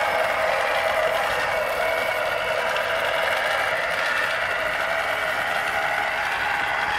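Battery-powered electric motor and gearbox of a 1998 G.I. Joe MOBAT toy tank running steadily as the plastic tank drives on its tracks and turns.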